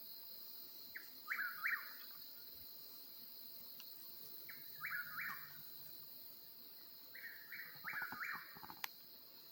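Eastern whip-poor-will calling its three-note 'whip-poor-will' song three times, over a steady drone of night insects. A single sharp click comes near the end.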